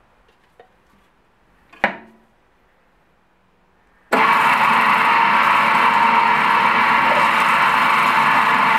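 Nagema bowl cutter (kutr): a single sharp knock about two seconds in as its metal lid is shut, then about four seconds in the machine starts suddenly and runs with a steady, loud whirring hum as its spinning knives and rotating bowl chop ground meat into Gothaer sausage batter.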